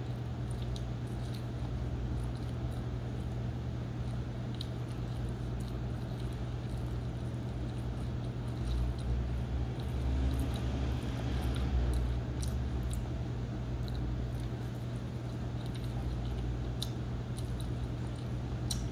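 A person chewing pizza with the mouth close to the microphone, giving scattered small wet clicks and smacks. Under it runs a steady low hum.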